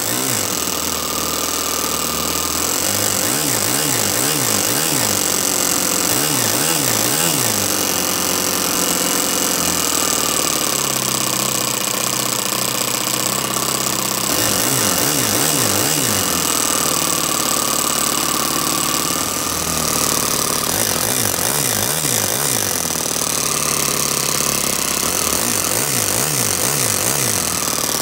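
Toyan FS-S100 four-stroke nitro glow engine running fast on a bench stand while its carburettor is adjusted. Its pitch repeatedly wobbles up and down in spells.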